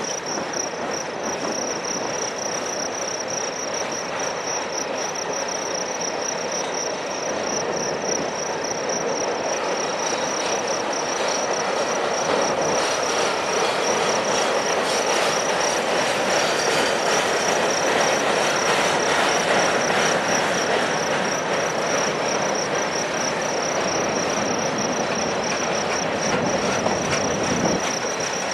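Freight cars of a Union Pacific mixed freight train rolling past: a steady rumble and rattle of steel wheels on rail, a little louder midway. Insects chirp in a high, steady pulse over it.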